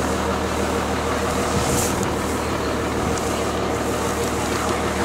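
Steady drone of an engine running at idle, a constant low hum that does not change. A brief high hiss comes about two seconds in.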